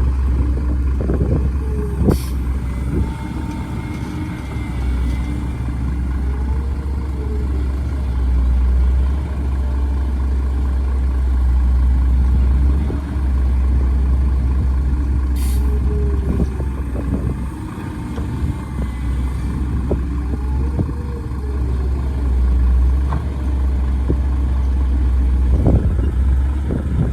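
A heavy diesel engine running steadily with a deep rumble. Fainter whines rise and fall over it, and there are a few scattered knocks.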